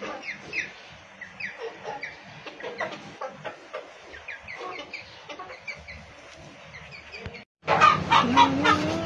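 A small flock of bantam chickens clucking, with many short, quick, downward-sliding chirps. After a brief break near the end the clucking is louder, and one longer, lower call rises slightly in pitch.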